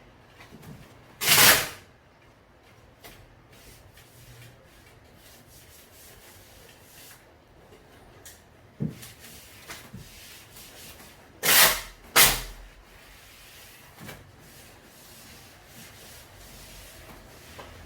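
Hand work on a door: rubbing and scraping, with three loud, brief scraping strokes and a scatter of light clicks and knocks.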